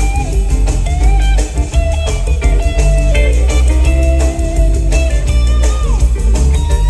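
Live rock band playing, led by a semi-hollow electric guitar soloing over bass and drums; the guitar holds sustained notes with string bends, one note sliding down about six seconds in.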